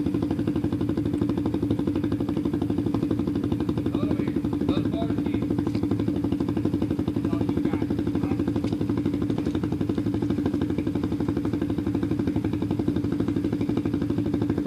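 ATV engine idling at a steady, even pitch, with rapid regular firing pulses.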